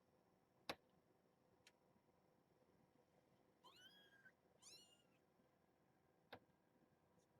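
Two soft, high-pitched mews from a newborn kitten, the second following the first after a brief pause. A faint click comes before them and another after.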